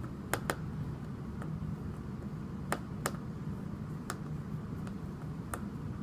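Sharp, irregular clicks of a screwdriver working a screw out of a Sunbeam 1600 compact hair dryer's plastic shell, two in quick succession near the start and a few more spaced out after. A steady low hum runs underneath.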